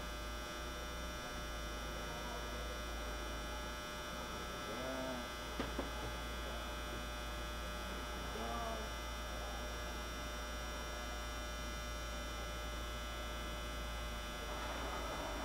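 Steady electrical hum of a powered-up Sharp CNC vertical mill as its servo-driven ball-screw axes are jogged; the axes themselves run quietly. Two faint clicks come about five and a half seconds in.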